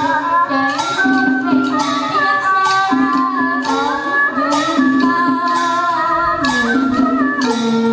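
Traditional Vietnamese bài chòi folk music: a wavering melody over a percussion beat struck about once a second.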